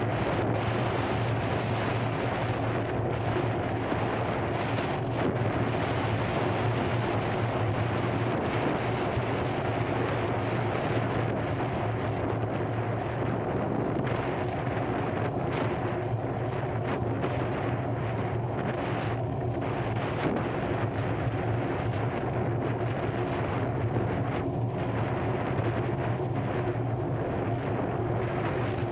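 A steady low drone, like an engine or motor running continuously, over a rushing noise.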